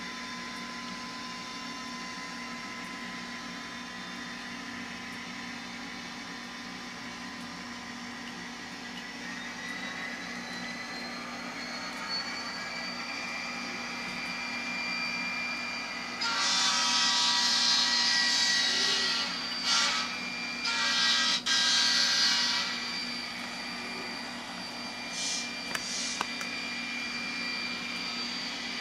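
N scale model diesel locomotive's DCC sound decoder playing through its tiny speaker: diesel engine sound running steadily, with a tone that rises slowly partway through. In the middle a horn sounds several long blasts with short breaks, and two short toots follow near the end.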